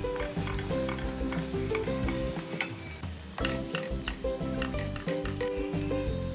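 Spice paste sizzling as it fries in a stainless steel wok, with a wooden spatula scraping and stirring it in irregular strokes. Soft background music plays underneath, pausing briefly about halfway through.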